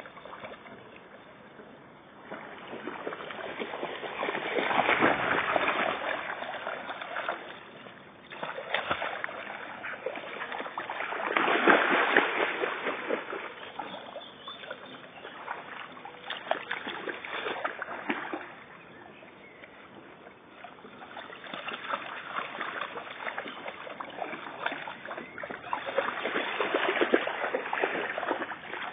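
A dog swimming and wading through shallow lake water at a reed bed, splashing in several surges that come and go, the loudest a little before halfway.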